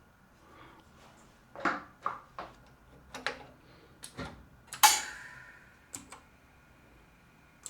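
Scattered clicks and metal clinks from small hard objects being handled. The loudest comes about five seconds in and rings on for about a second.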